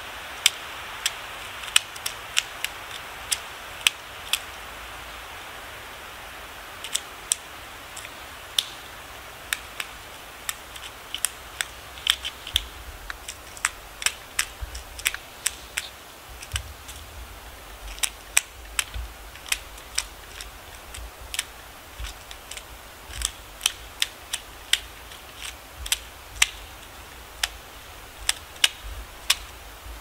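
Eurasian three-toed woodpecker pecking and prising at conifer bark while foraging for wood-boring insects: irregular sharp taps, about two a second, sometimes in quick pairs.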